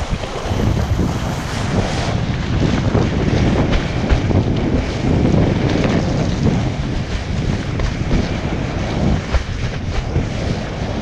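Wind buffeting the microphone of an action camera worn by a kitesurfer, over the rushing and slapping of water as the kiteboard planes across choppy sea and throws spray. The noise is loud and uneven throughout, with frequent short splashes.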